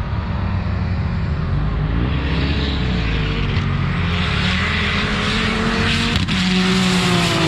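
Drag-racing cars accelerating hard down the strip, their engine note rising in pitch as they pull through the gears. A brief sharp knock comes about six seconds in, followed by a nearer engine at a steadier, strong pitch.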